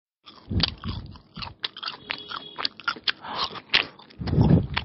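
Biting into and chewing an egg roll, a paratha wrap filled with onion and cucumber. A quick run of sharp crunches, with a heavier bite about half a second in and another near the end.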